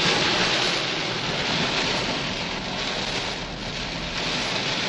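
Heavy rain and strong wind beating on a car, heard from inside the cabin as a steady rushing hiss.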